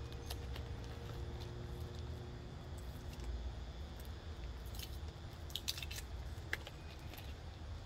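Packing tape being picked at and peeled from the end of a cardboard tube: faint scattered crinkles and clicks, with a small cluster of them about five and a half seconds in, over a steady low rumble.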